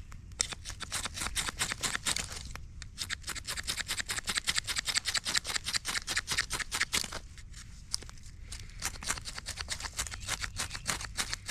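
Knife spine scraped again and again down a ferro rod (fire steel) to throw sparks onto tinder, a rapid run of sharp raspy strokes several times a second, broken by two short pauses.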